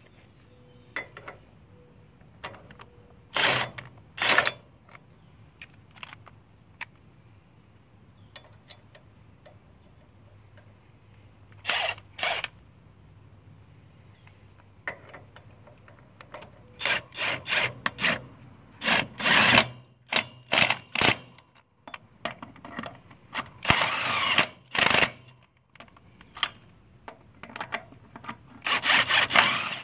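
DeWalt DCF899 20V brushless cordless impact wrench run in short bursts on a trailer wheel's lug nuts. There are a couple of brief bursts early on, more about twelve seconds in, then many bursts in quick succession through the second half.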